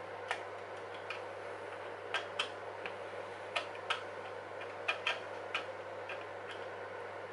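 Scattered small plastic clicks and taps, irregularly spaced, from hands fitting the parts and cables of an RC model truck, over a steady low background hum.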